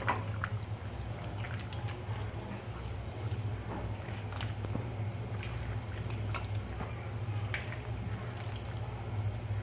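A hand squishing and kneading loitta (Bombay duck) fish pieces in a wet flour-and-spice batter in a steel bowl: irregular short wet squelches, over a steady low hum.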